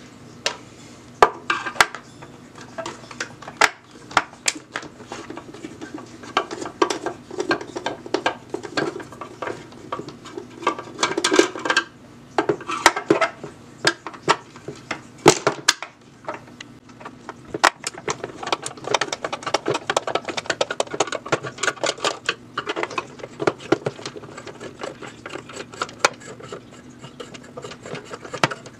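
Star-bit screwdriver being turned in the screws of an old electric can opener's plastic back housing: irregular metallic clicking and scraping of the bit in the screw heads, with small knocks and clinks as the unit is handled.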